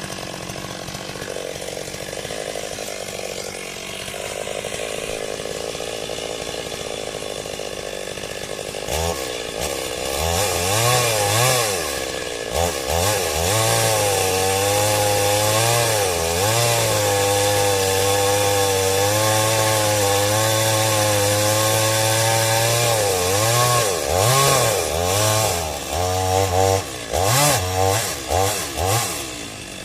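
Chainsaw running low for several seconds, then throttled up at about nine seconds and held at high revs, with the pitch wavering as it cuts into a durian tree. Near the end it is revved in a run of short blips before dropping back.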